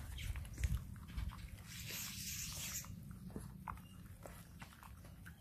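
English bulldog puppy eating wet raw mush from a stainless steel bowl: chewing and lapping, with scattered small clicks of teeth and muzzle against the metal bowl.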